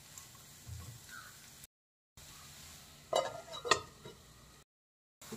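Quiet stirring of chopped vegetables in a non-stick frying pan with a wooden spatula. Then, about three seconds in, two sharp clinks as a stainless steel lid is set on the pan.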